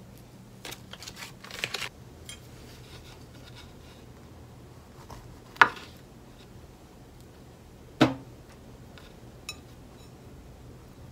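Kitchen knife cutting a fig on a wooden cutting board, with two sharp knocks of the blade on the board about two and a half seconds apart. Near the start there is a short patch of light rustling and clicking, and a faint steady hum sits underneath.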